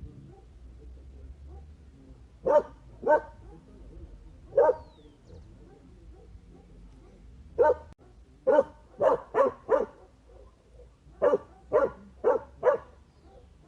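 A dog barking: short sharp barks, a few spaced singly at first, then two quick runs of four.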